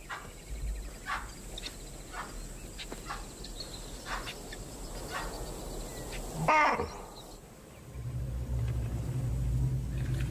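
A series of short, sharp animal calls, then a loud baboon alarm bark falling in pitch about six and a half seconds in, raised because predators have been spotted. A low steady drone sets in near the end.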